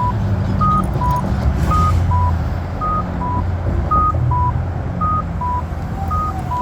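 Accessible pedestrian signal push button sounding short electronic beeps that alternate between a higher and a lower pitch, about two beeps a second, over the low rumble of nearby traffic.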